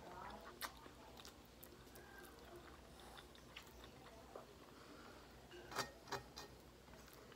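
Faint chewing and wet mouth smacks of someone eating chicken with her hands and gnawing the bone, with a few sharper clicks, one under a second in and two close together near the end.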